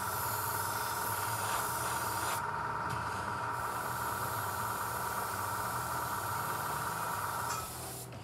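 Airbrush and its compressor running: a steady hiss of air with a steady whine underneath. The hiss drops out briefly twice, and everything stops about seven and a half seconds in.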